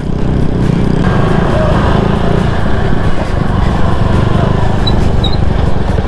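Motor scooter engine running steadily while riding, a constant low rumble with wind buffeting the microphone.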